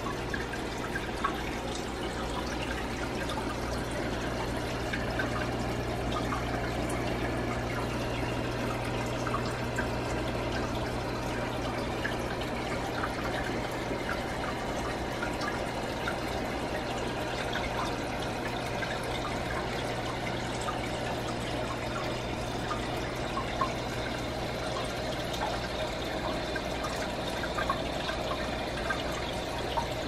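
Home fish aquarium's water circulating steadily: trickling and splashing with small scattered drips, over a low steady hum.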